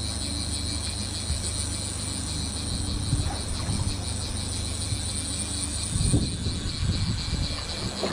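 Fishing boat's engine running with a steady low hum, while fishing line is wound in with a high, rapidly pulsing whir that stops at the very end. A few handling knocks come near the end.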